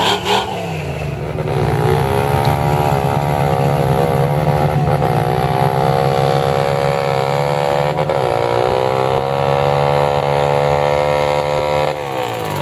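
Off-road vehicle engine running hard in a mud pit, its revs climbing and easing several times, then falling off sharply near the end.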